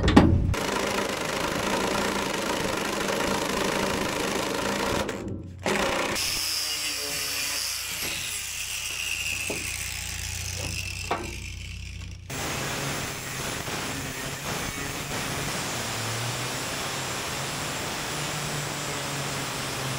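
Angle grinder cutting into the rusty sheet-steel floor pan of a Ford Super Duty cab, a steady grinding whir. The sound breaks off abruptly about five and twelve seconds in where clips are joined, and a higher whine shows in the middle stretch.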